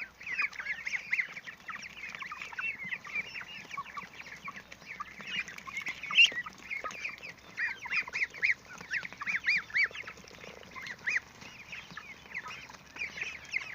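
A mixed flock of three-week-old goslings, ducklings and Cobb 500 broiler chicks peeping without a break as they feed on wheat: many overlapping short, high, arching chirps.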